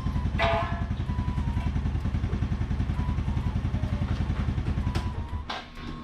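Yamaha Sight 115's single-cylinder four-stroke engine idling with an even, rapid putter. The idle holds steady during a check that steering does not pull the throttle cable and raise the revs. The engine note drops away about five and a half seconds in.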